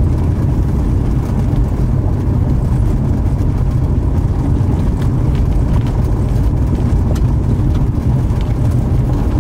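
Steady loud low rumbling noise with a few faint ticks.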